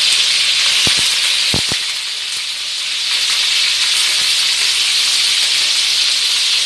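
Chicken breast pieces sizzling steadily in hot oil in a wok as they start to brown, with a few short knocks about a second in.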